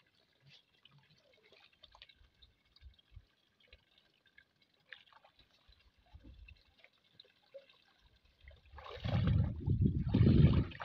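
Shallow water dripping and lapping softly as a cast net is gathered in by hand. About nine seconds in comes a loud splashing rush, in two surges, as the wet net is lifted out and water pours off it.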